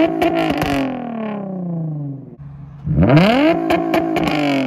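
Nissan 350Z's V6 free-revved twice, each rev rising sharply and falling away, with sharp pops and crackles from the exhaust as the revs drop. The engine is being revved to make the exhaust shoot flames.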